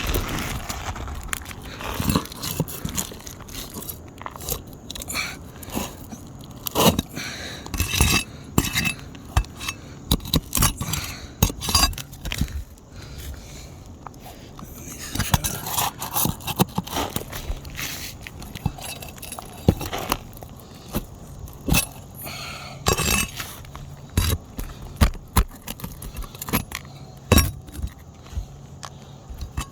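Irregular scraping, crunching and metallic clicking of a tool working against asphalt roof shingles as the roofing nails under them are pried out.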